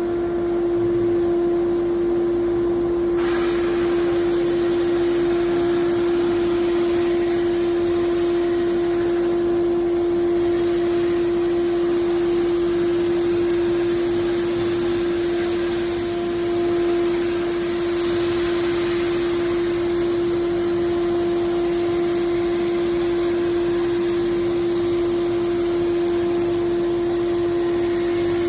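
NOVA 56CA drum sander running with a steady high motor whine; about three seconds in, a rougher rushing noise joins as the spinning drum works against the surface.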